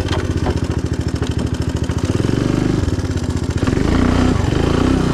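Three-wheeler ATV's small engine running with a rapid, even firing beat, getting louder about four seconds in.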